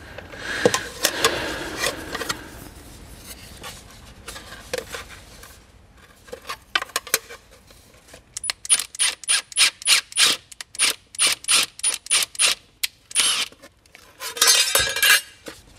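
A run of short, even scraping strokes, about two or three a second, from hand work on the intake parts. A softer rubbing sound comes about a second before them.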